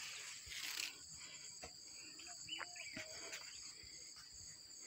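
Faint, steady, high-pitched insect trilling.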